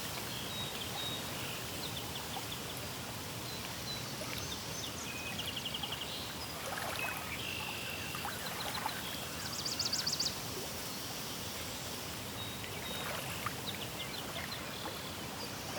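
Steady rush of flowing water with small birds chirping and trilling over it: a quick trill about five to six seconds in and a louder, higher trill about ten seconds in.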